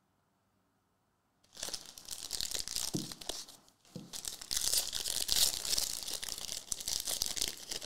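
Foil wrapper of a Prizm basketball hobby pack being torn open and crinkled by hand, starting about a second and a half in, with a short pause near the middle before louder crinkling.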